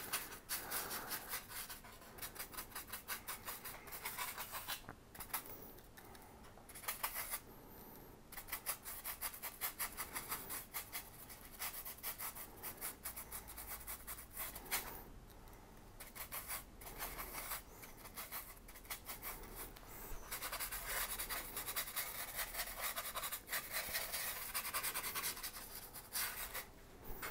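Small flat paintbrush scrubbing paint onto a styrene foam sheet: quick scratchy brush strokes in runs, broken by short pauses.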